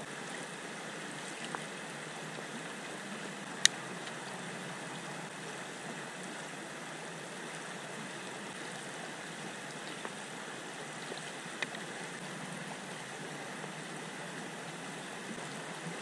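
Creek water flowing steadily. A single sharp click comes a little under four seconds in, with a couple of fainter ones around it.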